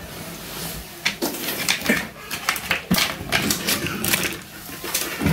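Small plastic toy doctor-kit pieces being handled, with a quick irregular run of light clicks, taps and scrapes starting about a second in.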